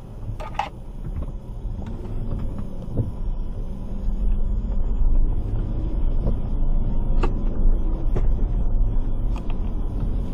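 Car driving, heard from inside the cabin: a steady low engine and road rumble that grows louder about four seconds in, with a few faint ticks.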